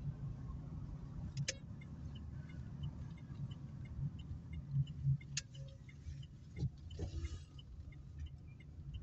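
Steady low engine and tyre rumble inside an Opel Meriva's cabin while driving, with the turn indicator ticking evenly about twice a second as the car turns at a junction. A few sharp clicks and knocks stand out.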